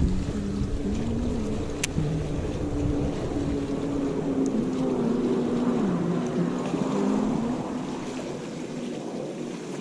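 A watercraft engine running, its pitch rising and falling, with wind buffeting the microphone, the wind easing near the end.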